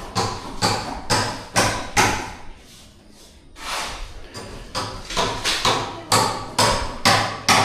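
Repeated hammer blows, about two a second, with a short break about two and a half seconds in before the strikes resume.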